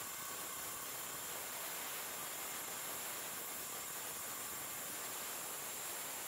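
Steady, even hiss like white noise, with no motor whine or cutting sound standing out.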